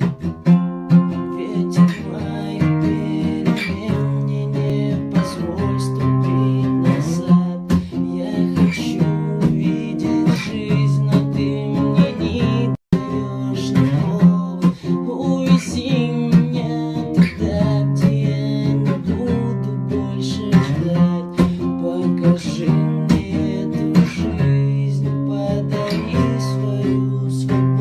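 Music: a song led by strummed guitar chords over a steady beat. It cuts out for an instant about halfway through.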